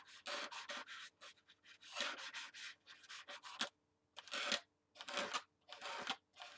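Paint-coated inflatable pineapple being pressed and rubbed against sketchbook paper: a run of short, irregular scuffing rubs.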